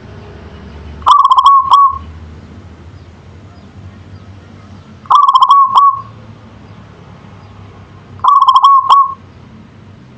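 Zebra dove (local Indonesian perkutut) in full song: three short phrases of rapid staccato coos, each under a second long, about three to four seconds apart.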